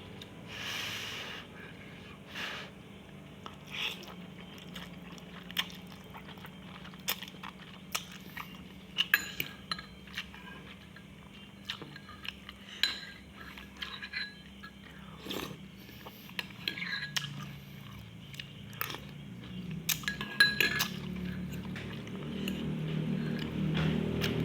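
A person eating a bowl of instant noodle soup: chewing, with scattered short clinks of cutlery against the bowl.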